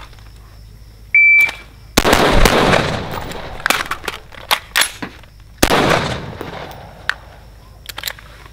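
A shot timer's short beep, then rifle shots from an AR-style rifle: sharp cracks with long echoing tails, the first under a second after the beep, the loudest near the start of the string and again a few seconds later, with smaller cracks between and toward the end.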